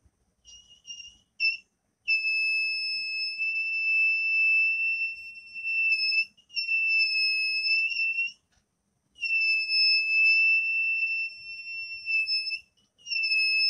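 Small electronic buzzer of a homemade fire alarm circuit sounding: a single steady high-pitched tone, a few brief chirps at first, then long stretches of two to four seconds broken by short gaps.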